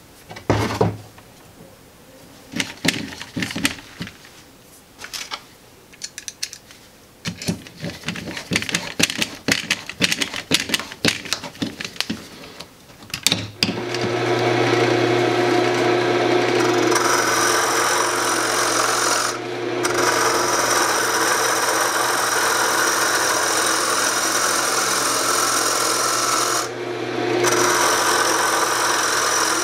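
Wood lathe running with a turning tool cutting into the centre of a spinning maple and zebrawood blank: a steady motor hum under a loud scraping hiss, the cutting lifting off briefly twice. For the first dozen seconds before that, scattered clicks and knocks of the blank and a metal marking tool being handled on the bench.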